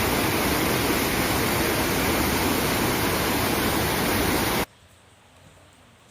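Loud, steady rushing noise that cuts off suddenly about four and a half seconds in.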